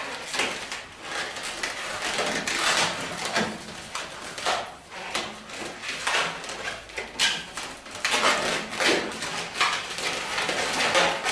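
Inflated 260 latex modelling balloons rubbing and squeaking against each other as they are handled and twisted together, in irregular bursts.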